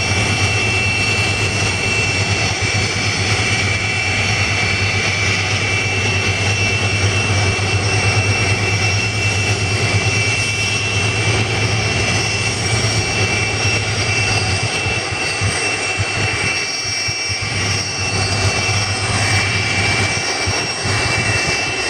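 Continuous jet turbine whine from a Boeing 747-400F freighter on the ground, with steady high-pitched tones over a rushing noise. A low hum underneath drops away about 15 seconds in.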